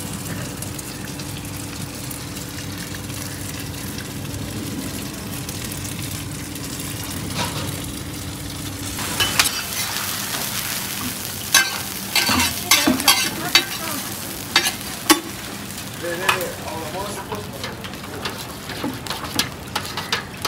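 Oil sizzling in a large flat wok, heated ready for oyster omelette batter. A steady low hum fills the first half. From about halfway on there is a hiss of sizzling with sharp metal clacks and knocks of a ladle against the wok and the batter pot.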